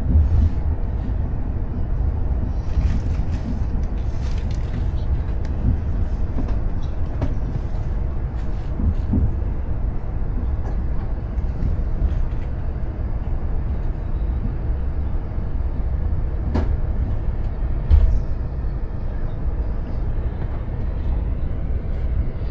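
Cabin noise of a China Railway high-speed train running between stations: a steady low rumble with a hiss above it. A sharp click and a short thump come near the end.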